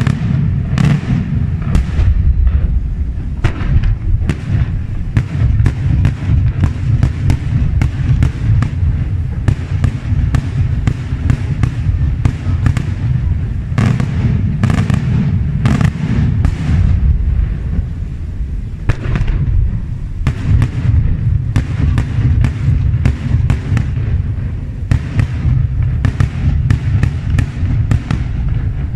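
Daytime fireworks display: dozens of sharp bangs from aerial shells bursting in quick succession over a continuous low rumble.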